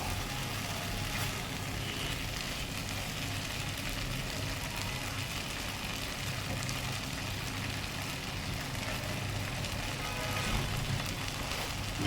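Chicken pieces frying in hot oil in a pan, with a steady sizzle over a low, steady hum.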